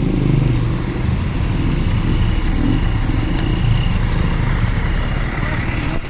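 Motorcycle engine running steadily, mixed with road and traffic noise from a tour bus close ahead.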